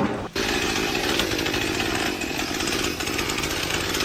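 A motorised power tool or small engine running steadily at high speed, starting abruptly about a third of a second in.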